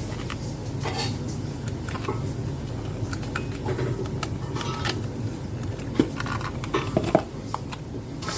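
Small hard parts and tools being handled: scattered light clicks and knocks, with sharper knocks about six and seven seconds in, over a steady low hum.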